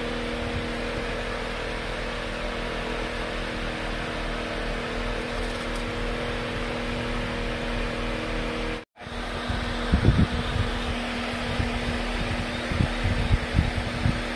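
Steady mechanical hum and hiss inside a truck cab, with a few steady tones in it. The sound cuts out briefly about nine seconds in; after that, low thumps and bumps break in over the hum.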